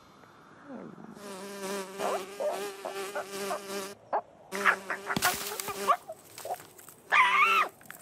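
Cartoon fly buzzing: a steady drone that starts about a second in, breaks off briefly around the middle, and resumes until about six seconds in. A short, louder wavering sound follows near the end.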